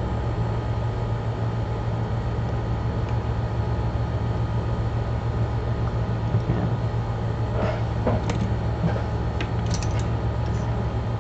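Steady low machine hum, like a fan or motor running, with a few faint light clicks of small-tool handling about two-thirds of the way in.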